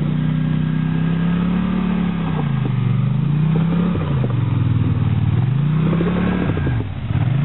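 ATV engine revving up and down several times while the machine is bogged in mud, the rider trying to power it out; the wheels have dug it in deeper.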